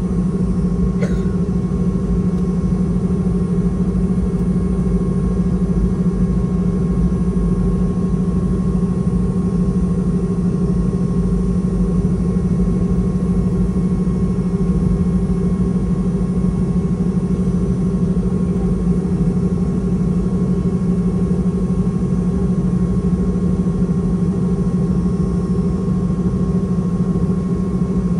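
Steady cabin drone inside a Boeing 717-200 airliner: its rear-mounted Rolls-Royce BR715 turbofans and cabin air, a loud unchanging low hum with a thin steady whine above it. A faint click comes about a second in.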